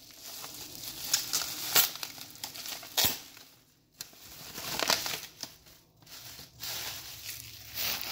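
Plastic bubble wrap being handled and unwrapped, crinkling and rustling in irregular bursts with a few sharp crackles, and a short lull about halfway through.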